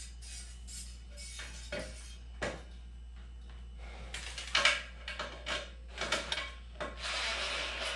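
Stainless steel membrane housings knocking and rubbing against a steel hand-truck frame as they are set into banding straps. About halfway through comes a run of scraping, rasping strokes, with a longer rasp near the end, as the straps are tightened with a hand tool.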